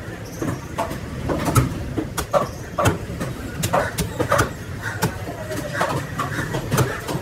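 Knife chopping and cutting through raw tuna on a wooden block: sharp, irregular knocks, several a second at times, over a steady low background rumble.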